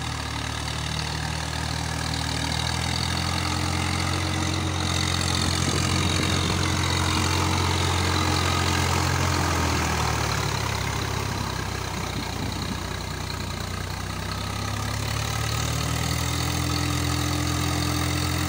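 Swaraj 855 4×4 tractor's three-cylinder diesel engine running steadily under load, driving a rotavator through waterlogged paddy mud to puddle it. The engine is loudest midway as the tractor passes close, its note dips slightly about ten seconds in and picks up again near the end.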